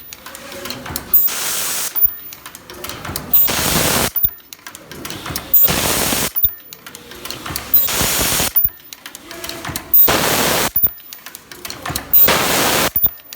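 Automatic plastic zipper film welding machine running through its cycle: a loud hissing burst about every two seconds, with mechanical clicking and clatter between the bursts.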